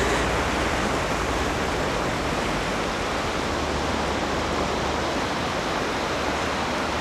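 Steady rushing of sea surf washing on a sandy beach.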